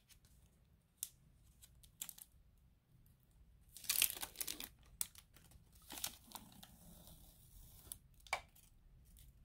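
Wrapper of a disposable nasal sampling swab being torn and peeled open, with crinkling and a few sharp clicks. The loudest tearing comes about four seconds in, with shorter rustles near six and eight seconds.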